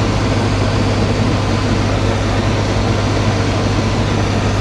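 Tractor engine running steadily under load while it pulls a sickle-bar mower-conditioner cutting hay, with a steady low drone.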